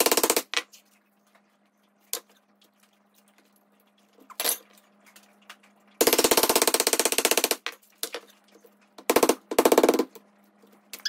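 Mallet rapidly tapping a stainless-steel coconut-opener punch down into the top of a young coconut, driving it through the shell. The taps come in quick runs: a short run at the start, two single knocks, a longer run in the middle and two short runs near the end.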